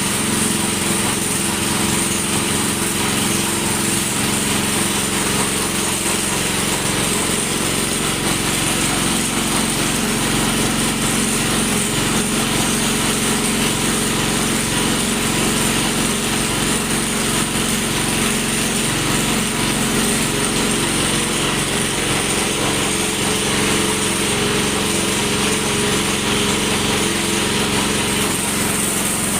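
Vertical pellet mill running steadily under load, its drive making a constant mechanical drone as it presses feed into pellets.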